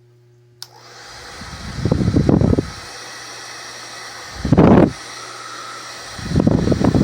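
WADODO 2200 W ionic hair dryer switched on with a click about half a second in, its motor spinning up into a steady blowing. Its airflow gusts loudly into the microphone three times.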